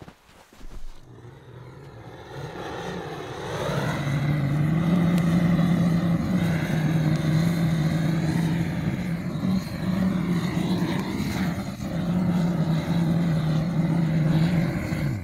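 Handheld butane jet torch lighter firing into kindling: a steady rushing flame with a low hum, building up over the first few seconds and cutting off abruptly at the end.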